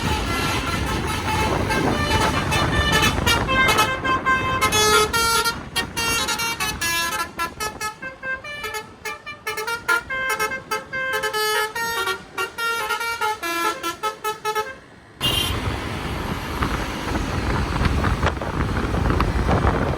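Basuri multi-tone telolet bus horn playing a fast tune of short notes that change pitch. It cuts off abruptly about fifteen seconds in, leaving steady engine and road noise.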